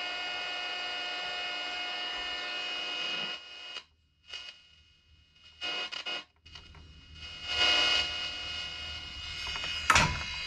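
National Panasonic 14-transistor radio putting out a loud, steady buzzing hum through its speaker that cuts off after about three seconds. It then crackles in and out in short bursts and turns to a rushing static hiss, with a sharp knock near the end.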